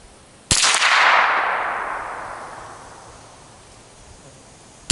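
Ruger 10/22 .22 rimfire rifle fired once about half a second in, the report trailing off over about three seconds; a second shot comes right at the end.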